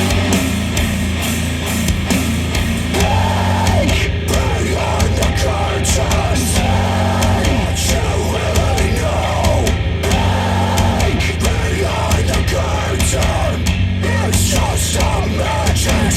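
Hard rock music with heavy distorted electric guitars, a steady bass line and drums, played through Monitor Audio Bronze 100 bookshelf speakers driven by a Yamaha A-S301 integrated amplifier.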